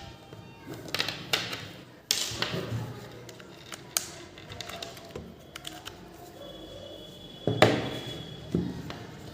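Handling sounds of a Lightning cable and power bank being unpacked and plugged in: scattered clicks, taps and knocks, with the loudest knock about seven and a half seconds in.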